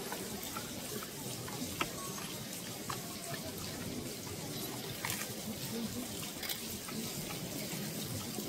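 Steady murmur of a crowd of onlookers, with a few sharp clicks scattered through it.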